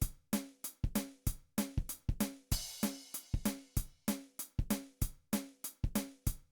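Drum kit beat: kick, snare and hi-hat hits in a steady rhythm, with a cymbal crash washing over it about two and a half seconds in.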